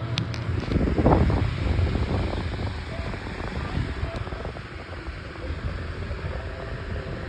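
Insignia 10-inch disc table fan running on medium speed: a steady rush of air buffeting the microphone, strongest about a second in.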